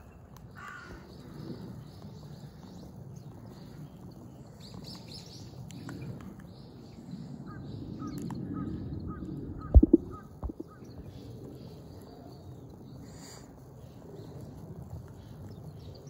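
Birds calling faintly over a low, steady background rumble, including a run of about eight short, evenly spaced calls around the middle. Two sharp knocks about ten seconds in are the loudest sounds.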